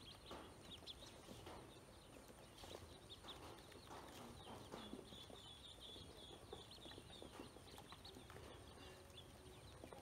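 Ducklings peeping softly in many short, high chirps while they feed on grain, with faint taps of their bills against a plastic basin.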